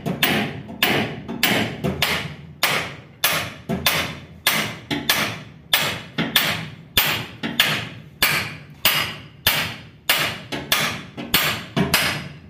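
Steady run of hand-hammer blows on steel at a shaft hub of a Swaraj 8100 combine harvester, a little under two blows a second, each one ringing briefly. A tight-fitting part is being knocked loose.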